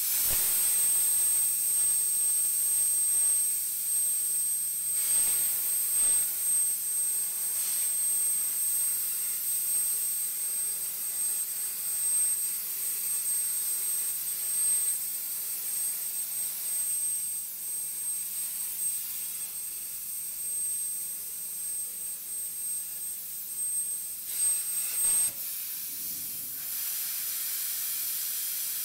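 CNC plasma cutting table cutting out plates from 6 mm steel plate: the arc's loud steady hiss with a thin high whine, starting suddenly. About 25 seconds in the whine stops and a softer hiss carries on.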